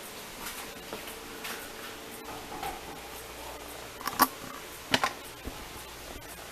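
A few light clicks and two sharper knocks, about four and five seconds in, over a faint steady hum.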